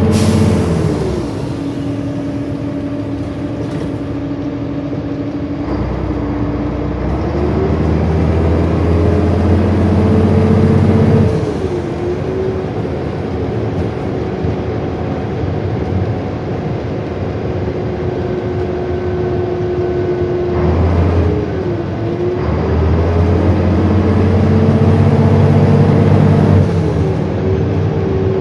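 Volvo Olympian double-deck bus's diesel engine heard from inside the saloon as the bus drives along. The engine note climbs and then drops back several times as the bus changes gear, over steady road noise.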